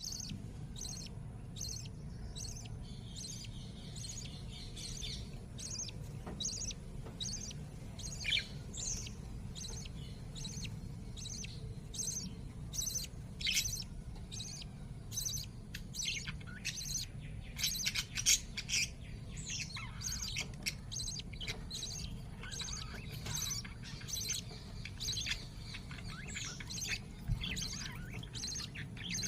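Lovebirds chirping: a steady run of short, high-pitched chirps and squeaks, a few a second and busier in the second half, over a steady low hum.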